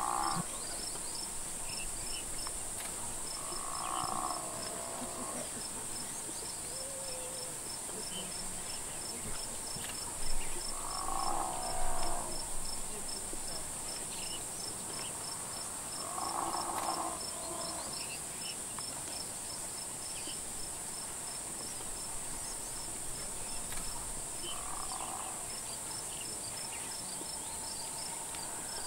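Steady insect chorus: a continuous high cicada-like whine with a rapid, regular cricket chirping over it. About five short animal calls, each lasting about a second, rise above it every few seconds.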